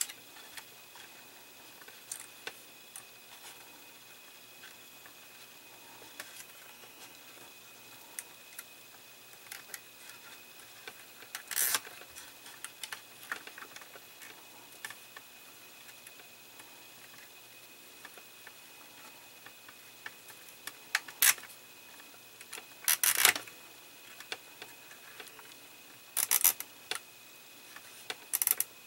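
Small clicks and rustles of fingers working thin wires and a plastic model dashboard. A few louder short runs of ratcheting clicks come in the second half, the last near the end, as a small nylon cable tie is pulled through around the wire bundle.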